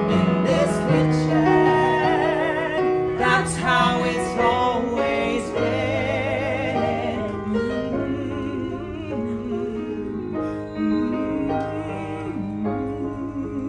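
A man and a woman singing a musical-theatre duet in harmony over piano accompaniment, holding long notes with a wide vibrato.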